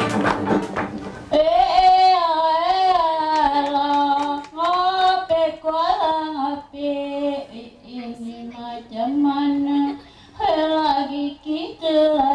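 A band with sharp percussion strikes cuts off about a second in. Then a woman sings solo, a song of her Orang Asli ancestors, in long phrases with held, wavering notes and gliding pitch, with short breaths between phrases.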